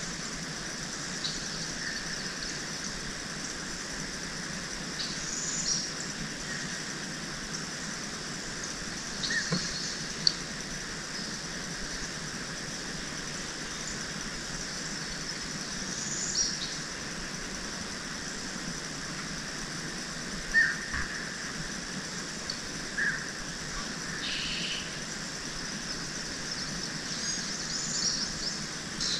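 Outdoor swamp ambience: scattered short bird chirps and calls over a steady background hiss, with a couple of sharper, louder chirps along the way.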